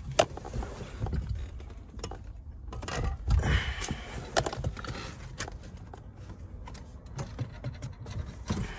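Scattered knocks, clicks and rustling of items being handled, moved and set down while clearing out the back of a car, with a louder clatter about three and a half seconds in.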